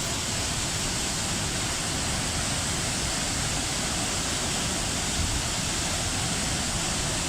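Jang Falls' water pouring down: a steady, even rushing noise with no break.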